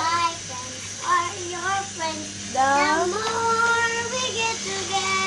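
A young girl singing, with one long held note about three seconds in.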